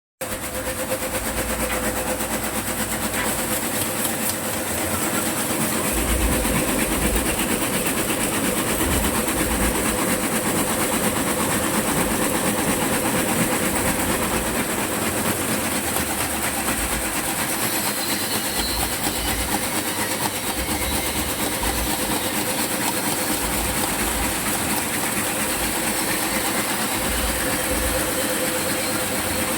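Satay-skewer polishing machine running steadily: an even rattling hiss over a constant machine hum.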